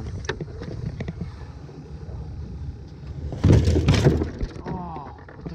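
Handling noise from a camera being moved about on a small boat's deck: rubbing and scattered clicks, with a louder clatter of knocks about three and a half seconds in.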